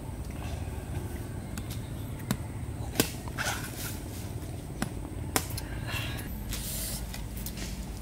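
Machete chopping into a green coconut: four sharp knocks spread over a few seconds, with brief scraping between them, over a steady low rumble.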